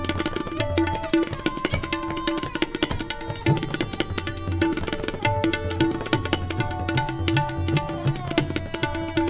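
Tabla played fast and continuously. Rapid strokes on the treble dayan ring at its tuned pitch, mixed with deep bass strokes on the metal bayan, over a melody accompaniment of held notes.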